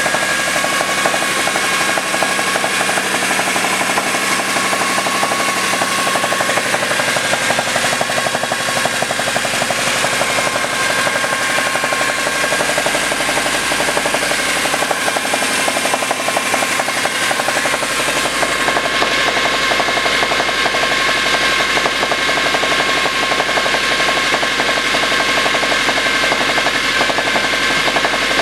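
Mercedes M271 four-cylinder petrol engine running steadily with its poly-V accessory belt removed, a fast, continuous knocking from inside the engine over the running.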